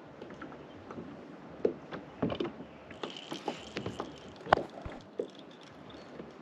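Scattered knocks and clatter of handling on a kayak, the loudest about halfway through, over a light steady hiss.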